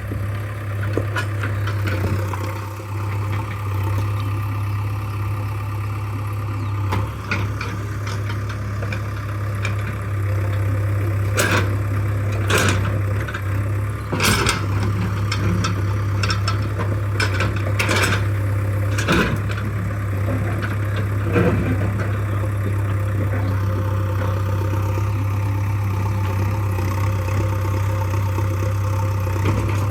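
JCB 3DX backhoe loader's diesel engine running steadily, with a run of sharp knocks in the middle.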